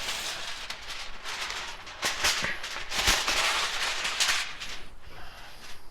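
Charcoal fire in a smoker crackling and popping over a steady hiss, loudest in the middle stretch.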